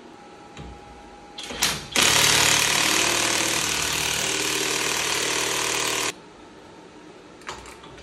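Cordless impact wrench hammering on the crankshaft harmonic balancer bolt of an LS V8. A short burst comes first, then a steady run of about four seconds that cuts off suddenly.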